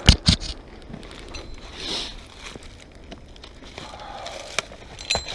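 Two sharp knocks against a tree trunk right at the start, then the rustle and scrape of a climbing rope being pulled around the base of the trunk through dry leaves, with another short knock near the end.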